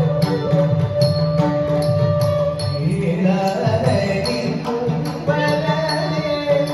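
Carnatic music for the dance: a voice singing a melody over steady held pitches, with bright metallic ticks keeping time about twice a second.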